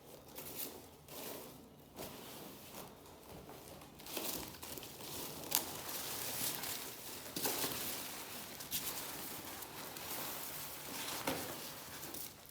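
Packing material crinkling and rustling as a parcel is unpacked by hand, busier after the first few seconds, with a couple of sharp clicks.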